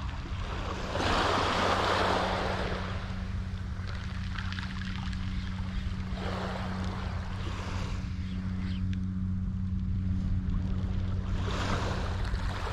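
Small waves breaking and washing up on a pebble beach, three swells about five seconds apart, over a steady low hum.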